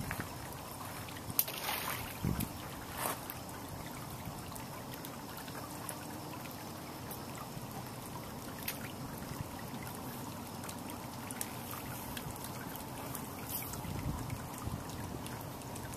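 Steady trickling and lapping of water against the aluminium hull of a G3 boat moving slowly along the bank, with a few faint clicks.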